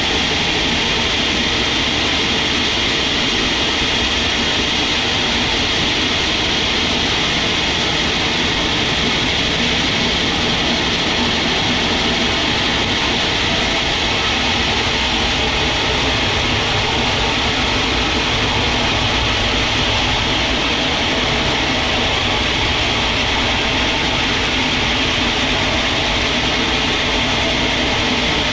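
Sawmill machinery running with a loud, steady mechanical noise that does not change.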